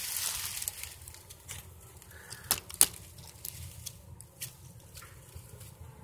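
Rustling of brush and leaf litter as someone pushes through swamp undergrowth on foot, with a few sharp twig snaps, two of them close together near the middle.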